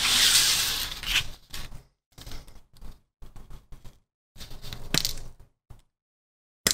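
A plastic model-kit parts sprue scraping and rattling as it is picked up and handled, then sprue cutters snipping parts off it with sharp clicks, one about five seconds in and another at the end.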